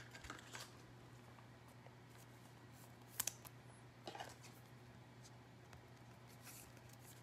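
Near silence: room tone with a steady low hum, broken by a few faint clicks and rustles of something being handled, the sharpest a quick double click about three seconds in.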